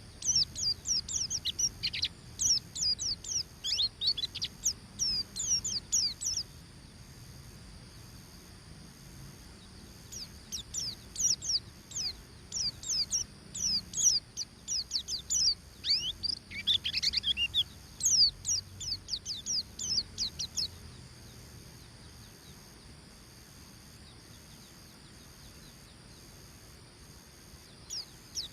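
White-eye singing in the fast twittering 'ngeriwik' style: quick runs of high, thin falling notes in two long bursts, then a pause of several seconds before it starts again at the very end.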